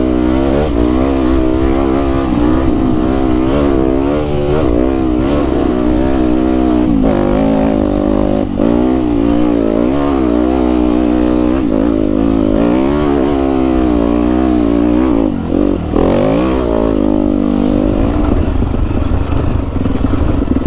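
Yamaha WR250F dirt bike's single-cylinder four-stroke engine under way, its pitch rising and falling again and again as the throttle is worked, with brief drops when the throttle is closed about eight seconds in and again near sixteen seconds. Wind rumble on the microphone underneath.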